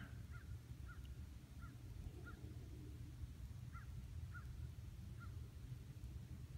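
A distant bird calling overhead: about seven faint, short calls a little over half a second apart, with a pause of a second and a half in the middle, over a low steady rumble of wind.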